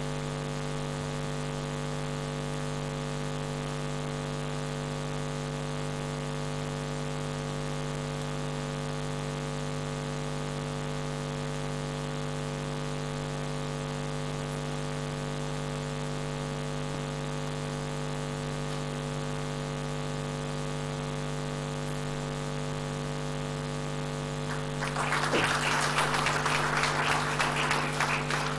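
A steady low hum made of several fixed tones, with no change in pitch or level. About 25 seconds in, an audience starts applauding, and the clapping continues to the end.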